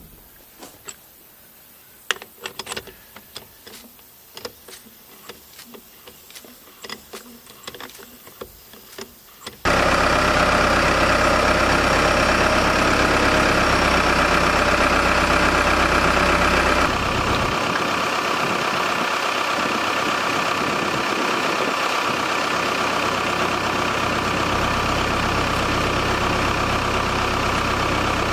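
Sparse light clicks and knocks, like hand tools on a wheel, for about ten seconds. Then an engine comes in suddenly and runs steadily at idle, its sound shifting slightly about seven seconds later.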